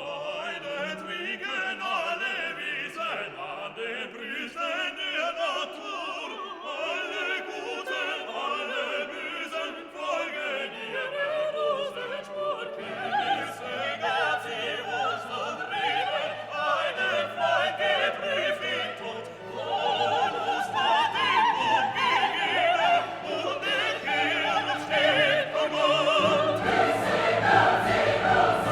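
Background music: classical operatic singing with orchestra, the low accompaniment filling in about halfway through and growing fuller near the end.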